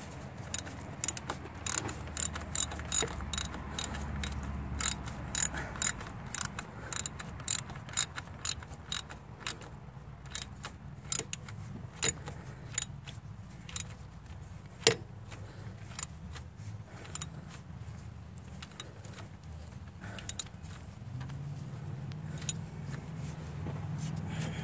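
Ratchet wrench clicking in runs as it tightens the thermostat housing bolts, about two to three clicks a second at first, thinning out after about halfway.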